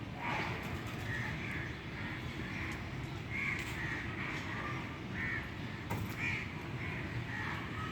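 Crows cawing over and over, a short call every half second or so, over a steady low background rumble.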